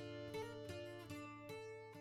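Background music of plucked string notes, a new note about every half second, slowly fading.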